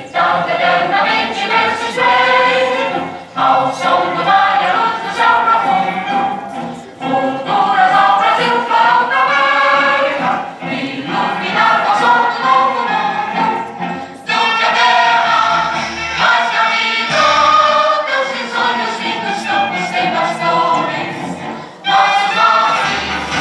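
A choir singing a song, the voices in several pitches moving together with short pauses between phrases.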